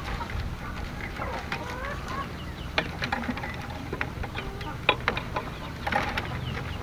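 Thin bamboo strips clicking and rustling as they are woven by hand, with a few sharp taps about three and five seconds in. Chickens cluck in the background.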